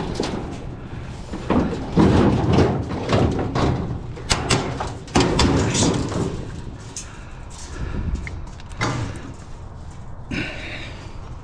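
Heavy metal scrap being handled: an irregular run of clanks, knocks and thumps, with a scraping sound near the end.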